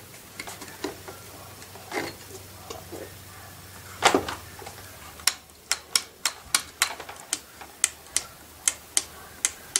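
Plastic clicks and a snap as the air filter cover of a Homdox chainsaw is worked loose and pulled off about four seconds in. After that, a regular run of sharp plastic clicks, about two or three a second, as the saw is handled.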